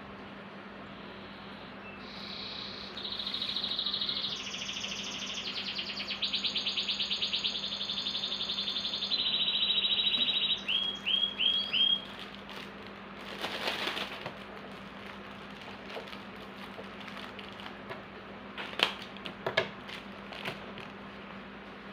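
A songbird singing a run of fast, buzzy trills that shift pitch in steps, ending in four short rising chirps. Later come a few scattered clicks and rustles.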